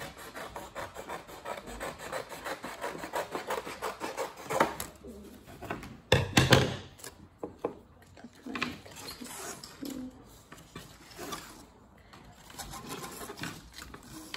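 Scissors cutting stiff construction paper in quick, rasping snips, then paper strips rustling and being handled on a table, with a louder burst of handling noise about six seconds in.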